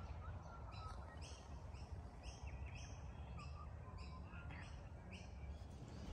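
Birds chirping: a run of short, high chirps about two a second that stops shortly before the end, over a faint, steady, low background rumble.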